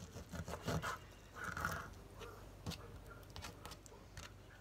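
Kitchen knife cutting raw chicken on a plastic cutting board: irregular knocks and taps of the blade against the board, densest in the first second, with a short scraping sound about a second and a half in and a few scattered taps after.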